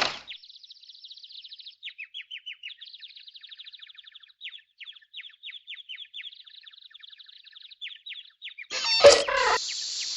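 Bird chirping in quick trilling runs of short chirps, a stock cartoon birdsong effect. About nine seconds in, a sudden loud burst cuts in, followed by a steady high hiss.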